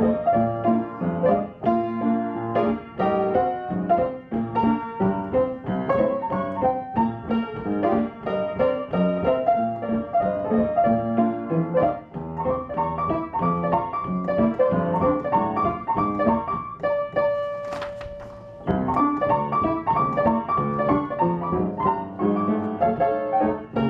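Solo stride-style piano playing a bouncy, rhythmic jazz tune. Near the end the playing breaks off for a second or two with one note left ringing while a page of music is turned, then picks up again.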